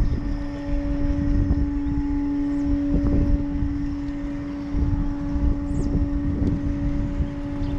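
Wind buffeting the microphone with an uneven low rumble, over a steady droning hum that holds one pitch throughout. A few faint, brief high chirps come through.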